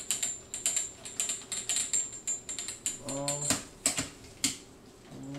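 Pearl H930 hi-hat stand being assembled: rapid metallic clicking and rattling as the pull rod is turned and screwed into the base, thinning to a few sharp clicks after about three and a half seconds.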